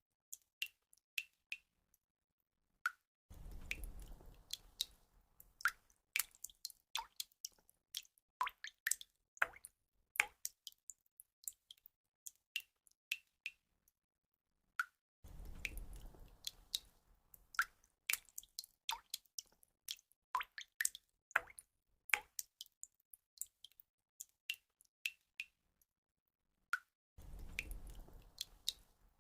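Water drops falling and plinking at uneven intervals, each a short, sharp drip. A low rushing swell comes in about three seconds in and again every twelve seconds or so, as the same stretch of dripping repeats in a loop.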